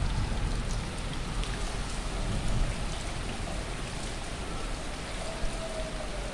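Steady rain falling, a continuous hiss with scattered drops ticking on surfaces.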